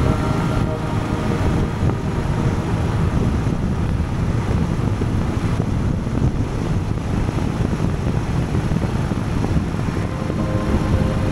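Wind rushing over the microphone together with the steady drone of a Honda Gold Wing sidecar motorcycle cruising at road speed, its engine and tyre noise underneath.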